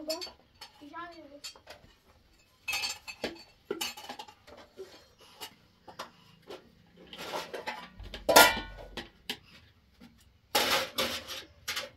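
Dishes, pots and utensils clinking and clattering in several separate bursts, the loudest about eight seconds in.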